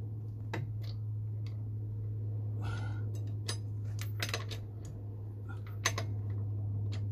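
Metal clinks and scrapes of a long wrench and socket being fitted to, turned on and lifted off steel car wheel nuts, a handful of separate sharp clinks with the sharpest near the end. A steady low hum runs underneath.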